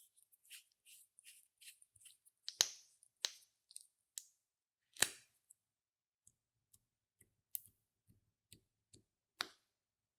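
Scattered soft clicks and crackles with a few louder sharp snaps, from hands working makeup and slime.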